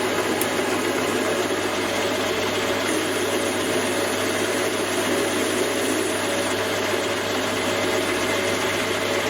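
Metal lathe running steadily as it turns down a small fitting: an even mechanical hum and whirr with no change in pitch or level.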